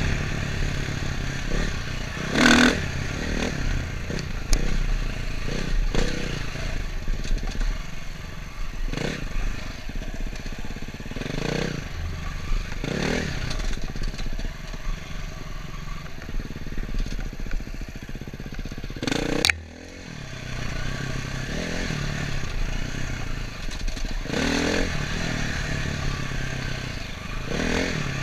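Dirt bike engine revving in short bursts every second or two as it is ridden along rough trail, with a sharp blip and a brief drop in the engine sound about two-thirds of the way through.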